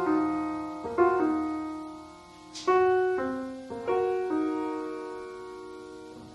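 Background piano music: slow, sustained chords, each struck and left to ring out.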